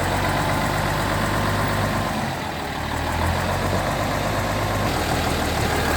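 Truck engine idling while still cold, running a little rough with a slight misfire. Its level dips slightly about two seconds in and picks up again about a second later.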